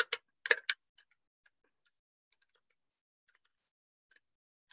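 A spoon scraping and knocking inside a blender jar of thick hummus: a few short clicks in the first second, then only faint scattered ticks.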